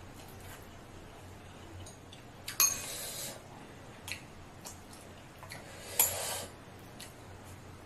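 Wooden chopsticks clinking and scraping against a small glass bowl twice, about two and a half seconds in and again about six seconds in, each a sharp clink followed by a short scrape. Faint chewing clicks come between them.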